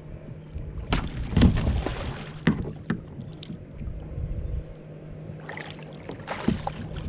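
Irregular splashes and knocks as a longnose gar, shot with a bowfishing arrow, is pulled in by hand on the line to the side of a kayak, over a steady low hum.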